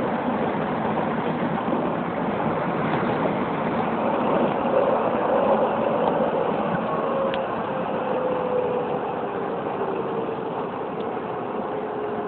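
Keisei 3700 series electric train running at speed, heard from behind the cab: steady wheel-and-rail running noise with a faint whine that slowly drops in pitch through the middle, and a few light ticks.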